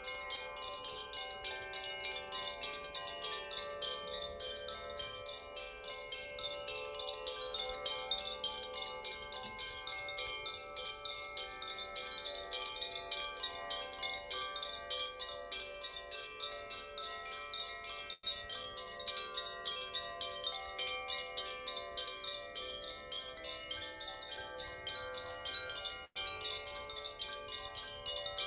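Chimes ringing continuously, a dense shimmer of many overlapping high tones struck over and over in quick succession.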